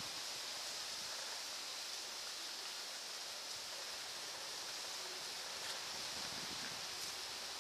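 Steady hiss of background noise, with a few faint soft clicks from a puppy nibbling a cream sandwich biscuit held in a hand.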